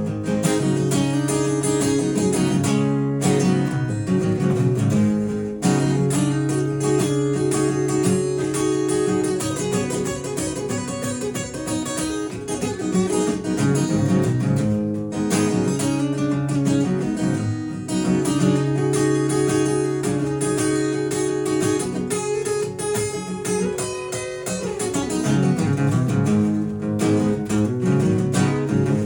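Acoustic guitar strummed in chords through an instrumental passage, with a few short breaks between phrases.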